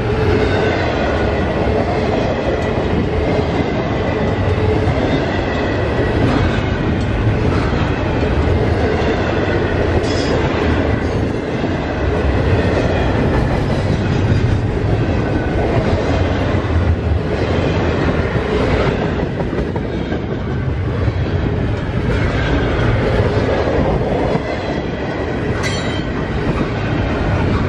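Long intermodal freight train's cars rolling past, a steady rumble with wheels clacking over rail joints and a thin wheel squeal at times.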